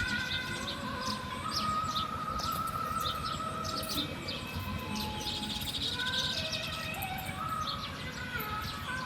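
Wild birds chirping and calling: many short, rapid chirps mixed with a few longer held whistled notes, over a steady outdoor background hiss.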